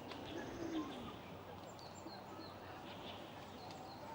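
Faint outdoor ambience: birds chirping here and there over a steady background hum of distant noise, with one short, low, falling sound under a second in.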